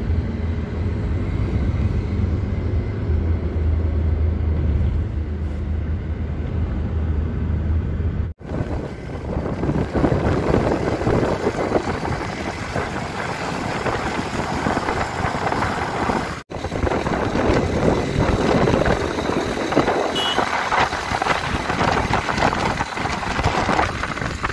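Road vehicle travelling along a road, heard from on board: a steady low engine hum for the first eight seconds, then rough wind and road noise. The sound drops out briefly about 8 and 16 seconds in.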